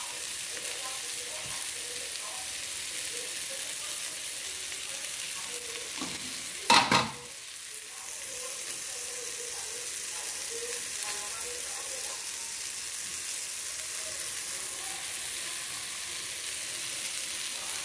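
Seasoned chicken pieces with onion, tomato and pepper frying in a pot, with a steady sizzle. A brief loud knock about seven seconds in.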